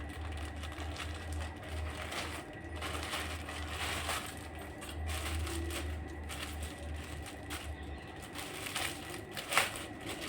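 Plastic courier packet being torn open and crinkled by hand: irregular rustling and crackling, with a sharp snap about nine and a half seconds in. A low steady hum runs underneath and stops near the end.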